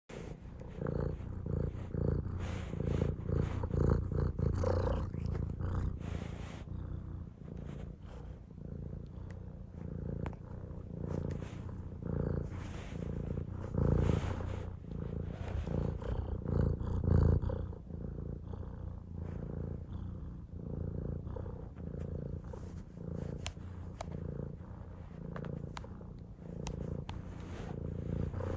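Domestic cat purring, a continuous low rumble that swells and eases in a slow rhythm.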